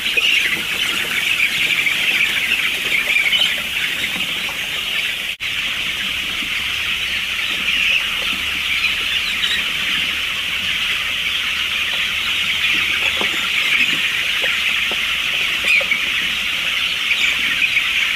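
A huge flock of young chicks peeping all together in a steady, dense chorus of high chirps. The sound drops out for an instant about five seconds in.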